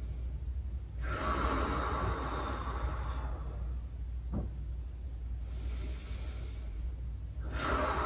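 A person taking slow, deep breaths, three in all: a long breath of about two seconds starting a second in, a fainter one past the middle, and another beginning near the end. A brief click comes about four seconds in.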